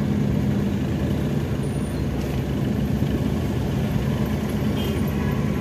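Motor vehicle engine running at low speed in slow road traffic: a steady low drone with road noise.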